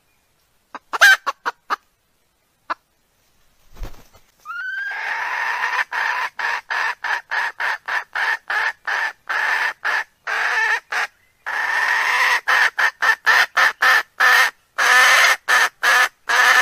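Recorded hen calls played as a lure for wild cocks: fast repeated clucking, about three calls a second, each cut off sharply into silence. A few scattered short calls come first, and the steady run of clucks begins about four and a half seconds in.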